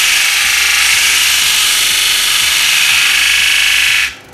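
The end of a wooden board being sanded against the spinning abrasive disc of an SIP 12-inch induction-motor disc sander. It makes a loud, steady grinding hiss that cuts off abruptly near the end as the wood leaves the disc.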